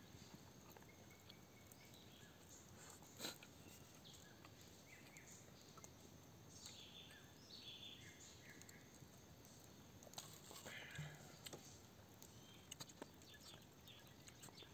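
Near silence: faint night-time forest ambience with a few scattered small clicks and some short, high chirps.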